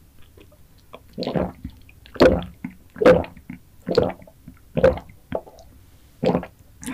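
Close-miked drinking through a straw: about seven wet gulps and swallows, roughly a second apart, with a short pause before the last two.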